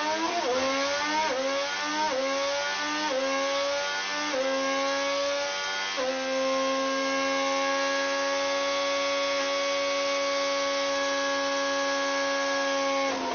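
Honda's 2026 Formula One turbocharged V6 power unit running at high revs. Its pitch climbs and drops back about six times, like upshifts through the gears, then holds at one steady high pitch for the last seven seconds or so.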